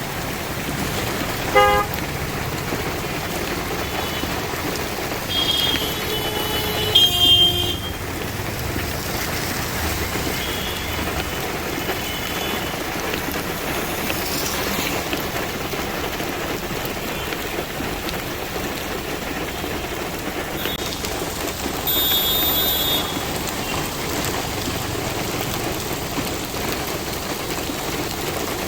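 Heavy monsoon rain falling steadily on a city street, with road traffic and several short vehicle horn toots: one about two seconds in, the loudest around six to seven seconds in, and another a little after twenty seconds in.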